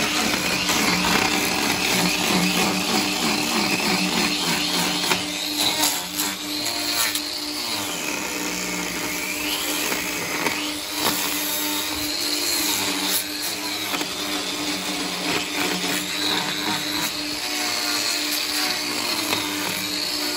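Handheld angle grinder with a hoof-trimming disc running and grinding down a cow's hoof horn, its whine dipping and rising again as the disc bites into the claw.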